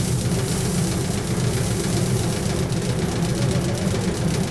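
Motorised paddy thresher running steadily with a low hum as bundles of paddy are held against its spinning drum. A fast, even rattle joins in about halfway through.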